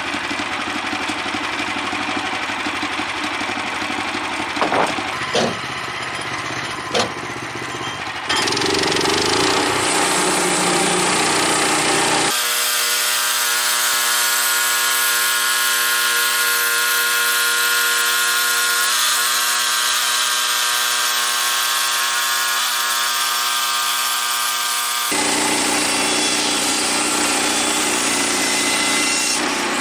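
Gas engine of a Woodland Mills portable bandsaw sawmill running, with a few sharp knocks about five to seven seconds in. About eight seconds in it gets louder and stays so, as the band blade saws through the old pine timber.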